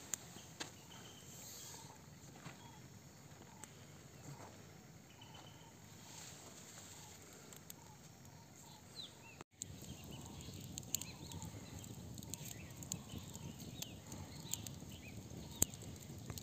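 Faint rural outdoor ambience: a low hiss with scattered short bird chirps and light rustling and clicks. It drops out for an instant about halfway through, then carries on with more low rumble.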